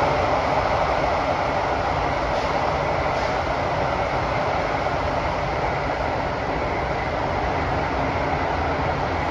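Kawasaki–CRRC Sifang CT251 metro train running at speed through an underground tunnel, heard inside the passenger car: a steady rumble and rush of wheels on rail, a little louder at the start.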